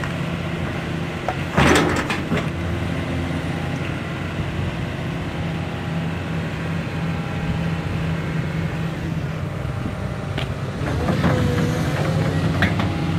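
Hydraulic excavator's diesel engine running steadily, with one sharp knock a little under two seconds in and a few lighter clicks near the end.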